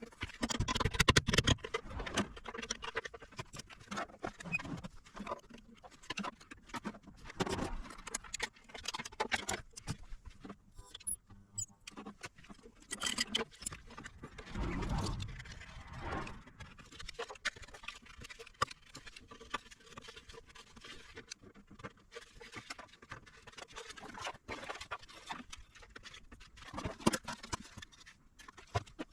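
Irregular clicks, knocks and rattles of hand-work with tools and parts on an electronics repair bench. The loudest knocks come about a second in and again about halfway through.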